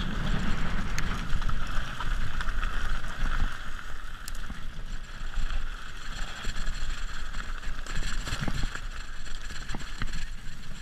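Mountain bike riding fast down a rough, dry dirt trail: wind buffeting the microphone over the rolling of knobby tyres on dirt and stones, with a few sharp clicks and rattles from the bike.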